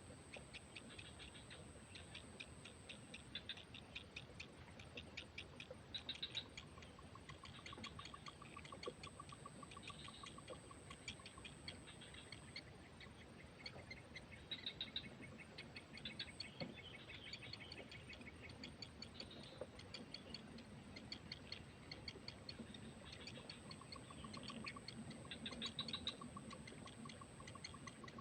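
Faint natural outdoor ambience: rapid continuous ticking and a thin, high, steady buzz that stops and starts, with short bird chirps now and then and a pulsed trill twice.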